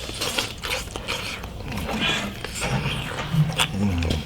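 Close-up eating sounds from a meal of stewed mutton and radish: chewing and mouth noises with short clicks, and a few short low hums in roughly the last second and a half.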